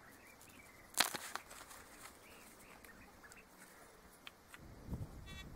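Metal detector coil knocking and scraping on stony dirt while a target is pinpointed: a sharp knock about a second in, scratchy rustling after it, and a dull bump near the end. The detector's electronic beep starts just as it ends.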